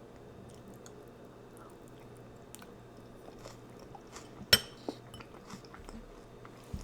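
Close-miked chewing of a mouthful of food, with small wet mouth clicks and one sharp loud click or crunch a little past halfway, then a dull thump near the end.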